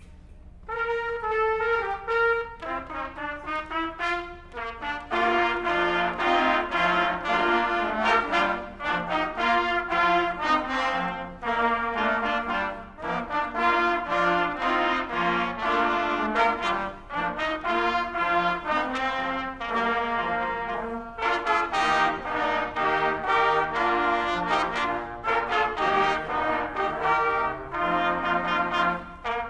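Trumpet ensemble playing a piece together. It starts about a second in with a single line, and other parts join over the next few seconds.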